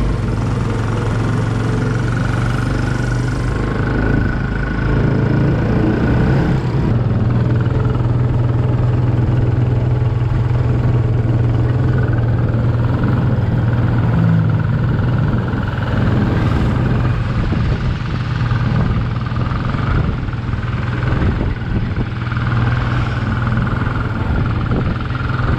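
Motorcycle taxi's engine running steadily under way, heard from inside its sidecar cab, with a constant low hum.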